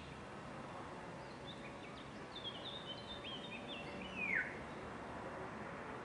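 A songbird sings a quick series of short, high, downward-slurred notes, ending in a louder falling note, over steady outdoor background noise.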